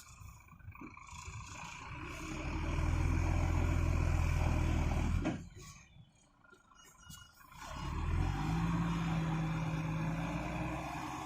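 IVECO 420 tractor unit's diesel engine pulling hard under heavy load, building up and holding a steady loud run, then dropping away abruptly about five seconds in before picking up again near the eight-second mark. The truck is straining to climb a sand slope with a wheel loader on its trailer and not making it.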